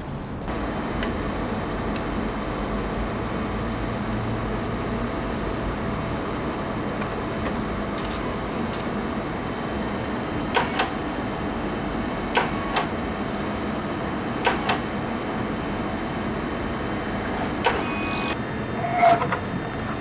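Steady mechanical hum with no speech. From about ten seconds in come a handful of sharp single clicks and knocks, and a quick cluster of them comes near the end.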